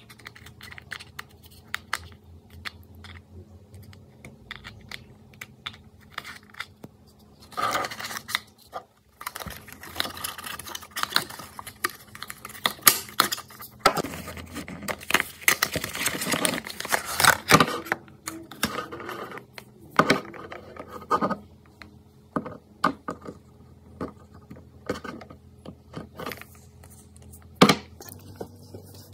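Clear plastic wrapping crinkling and rustling as it is peeled and handled, loudest through the middle, among scattered small clicks and taps of plastic jars, lids and a bottle on a tabletop. A sharp tap near the end.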